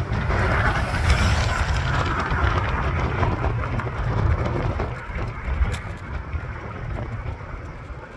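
Riding noise from an e-scooter: wind buffeting the microphone with a low rumble and the rush of small tyres on asphalt. The rush eases about five seconds in.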